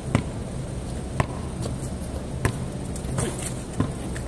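Basketball dribbled on a concrete court: single bounces about a second apart.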